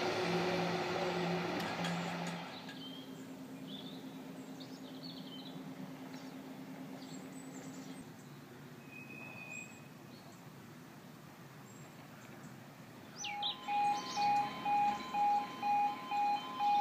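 A diesel passenger train approaching, a loud mix of rumble and pulsing low tones, drops away after a couple of seconds to a faint steady hum with birds chirping. About 13 s in, a railway level crossing warning alarm starts: a loud electronic tone pulsing nearly twice a second, warning that the barriers are coming down.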